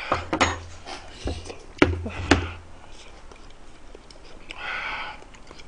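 A man huffing and gasping through an open mouth around a scalding-hot mouthful of steamed egg. There are a few sharp knocks in the first two and a half seconds and one long breathy exhale near the end.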